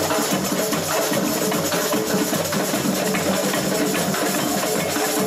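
Samba percussion band playing: dense, driving drumming with a low bass-drum beat about twice a second.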